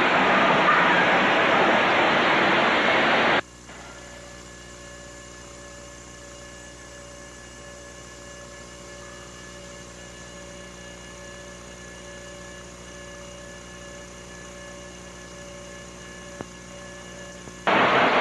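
A loud, even rushing noise cuts off abruptly about three seconds in. What is left is a steady electrical hum of several fixed tones from the camcorder's audio line, typical of a home-video camera's sound faded out. The louder sound snaps back in near the end.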